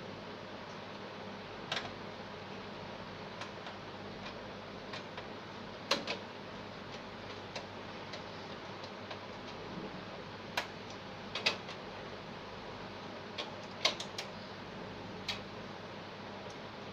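Irregular small clicks and taps, about a dozen, scattered over a steady hiss: hardware and tools being handled during a PC build.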